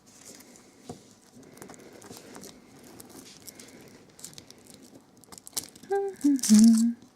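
Foil wrapper of a giant Kinder Surprise egg crinkling and rustling with small ticks as it is unwrapped. A short, louder voice-like sound comes near the end.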